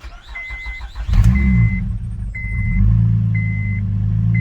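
Car engine cranked by its starter and catching about a second in, revving briefly and settling to a steady idle, started on a freshly programmed key. A warning chime beeps about once a second throughout.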